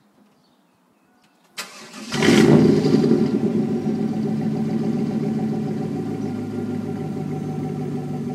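1996 Chevrolet Camaro Z28's 5.7-litre LT1 V8 starting through a muffler-deleted exhaust, straight-piped from the stock catalytic converters to the tips. A short crank comes about a second and a half in, then the engine catches with a brief loud flare and settles to a steady idle.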